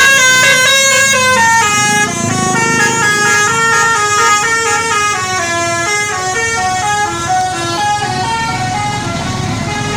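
Basuri telolet bus horn, a multi-trumpet musical air horn, playing a melody: a quick run of stepped notes, one after another. It is loudest in the first two seconds.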